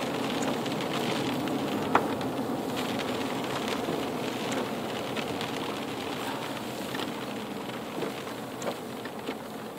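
A car moving with a steady wet hiss from its tyres on a wet, flooded road, heard from inside the cabin. The hiss slowly gets quieter, with a few light clicks and one sharper click about two seconds in.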